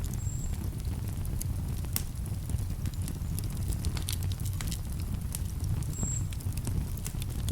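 Wood campfire crackling, with irregular sharp pops and snaps over a steady low rumble. Two brief high peeps come about a quarter second in and about six seconds in.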